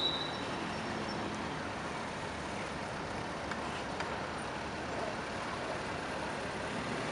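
Steady, low-level road traffic noise with no single vehicle standing out. A shrill whistle blast dies away right at the start.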